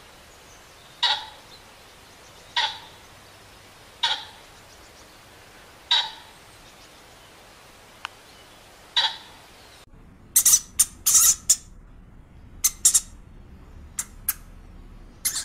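A pheasant giving short, sharp calls, five of them about every one and a half to two seconds. About ten seconds in, guinea pigs take over with quick, high-pitched squeaks in clusters, louder than the calls.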